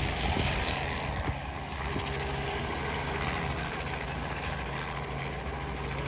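Steady low drone of aircraft engines and propellers, a hum of several even low tones that holds level throughout.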